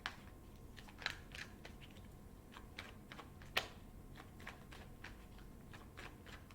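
Tarot cards being drawn and laid down on a table: a string of light, irregular clicks and taps, the loudest about three and a half seconds in.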